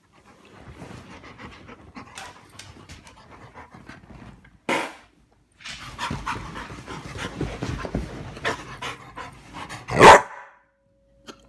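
Yellow Labrador retriever panting fast and excitedly, with two short loud barks about five seconds apart, the second the loudest.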